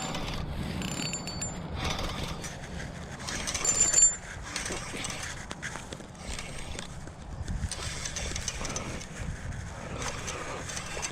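Spinning fishing reel being cranked, under rustling and handling noise.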